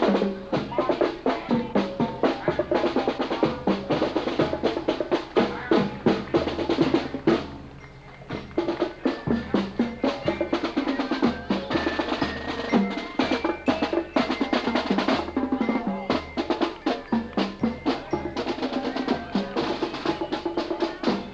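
Marching band in a parade: snare drums rolling and a bass drum keeping a steady march beat, with a high melody over the drums. The band drops off briefly about eight seconds in.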